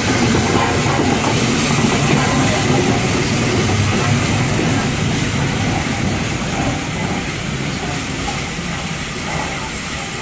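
LNER A3 steam locomotive Flying Scotsman and its coaches rolling past close by, a steady rumble of wheels on rail that eases off slightly toward the end as the coaches follow the engine.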